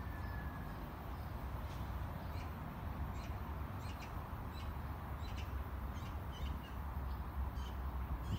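Small birds chirping in short, scattered calls, about a dozen high thin chirps, over a steady low rumble. No loud peacock call is heard.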